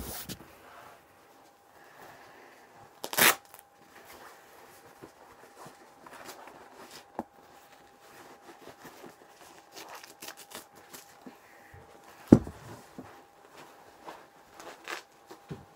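A person moving about close by: light rustling and scattered small clicks and knocks over a faint steady hum, broken by two loud short thumps, one about three seconds in and a deeper one about twelve seconds in.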